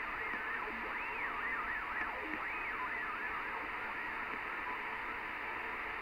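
Single-sideband CB radio receiver on channel 38 lower sideband, giving steady static hiss with a faint whine that glides up and down in pitch, wavering several times in the first few seconds and then fading into the hiss.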